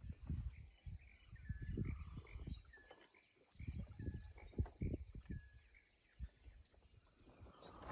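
Outdoor morning ambience of insects chirping in a steady, evenly pulsing chorus, with a few short bird calls and irregular low thumps on the microphone.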